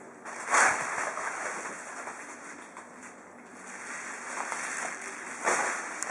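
Plastic bubble-wrap sheet rustling and crinkling, with two louder crinkles, one about half a second in and one near the end.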